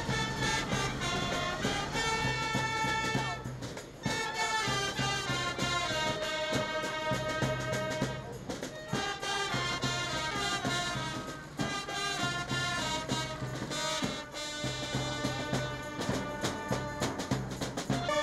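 Music led by brass instruments, playing a melody over a steady beat.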